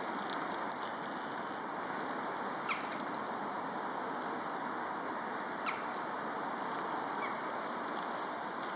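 Steady outdoor background noise with a few short, high bird calls that slide sharply downward: two about 3 and 6 seconds in, a fainter one later, and a thin high steady note in the last couple of seconds.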